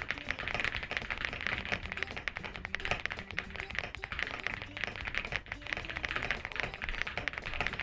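Fast, continuous typing on an Epomaker Shadow X mechanical keyboard with Wisteria switches: a dense, unbroken stream of key clacks at typing-test speed.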